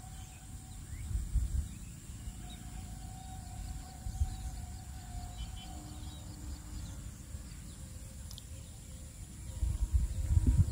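Hand-repair handling noise from a circular saw that is not running: a screwdriver working at the brush cap, then the saw being shifted and turned over on a concrete floor, with a few dull knocks near the end. Birds chirp faintly in the background.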